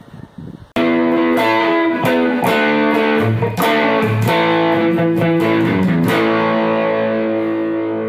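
Outro music: a guitar riff with distortion cuts in sharply under a second in, with quick picked notes, then ends on a held chord left ringing and slowly fading.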